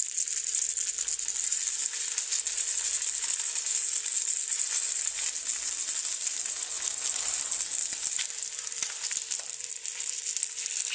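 Trout pieces frying in oil in a pan: a steady, high-pitched sizzle with fine crackling.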